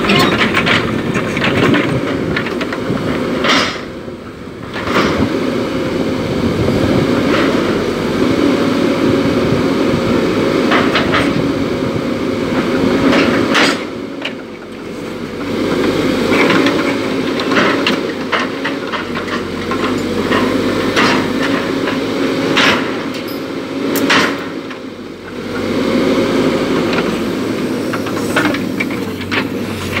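Caterpillar 314D tracked excavator working: its diesel engine runs under hydraulic load with a steady whine, overlaid by repeated metallic clanks and squeaks from the steel tracks and grapple as it moves. The engine eases off briefly three times between moves.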